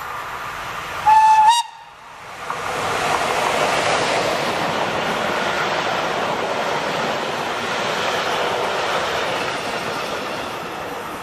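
Electric locomotive sounding one short horn blast about a second in, then a passenger train passing close by: a steady rush of wheels on rail that eases slightly near the end.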